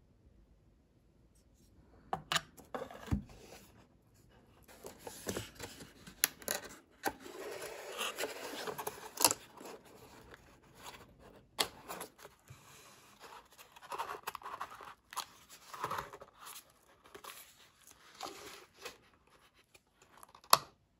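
Hands handling a cardboard box holding three small glass bottles, starting about two seconds in: cardboard rubbing and scraping with scattered clicks and knocks. A sharp click near the end is the loudest sound.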